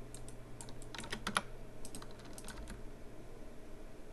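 Computer keyboard keys pressed in short irregular runs, with a bunch of clicks about a second in, over a low steady hum.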